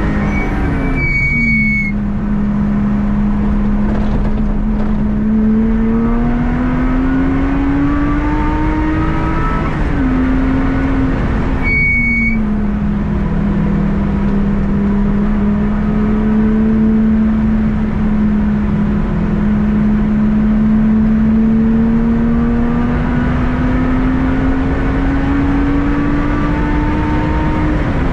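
Lotus Exige engine running under light throttle. Its pitch climbs slowly and falls sharply twice, about ten seconds apart, each time with a brief high-pitched squeal.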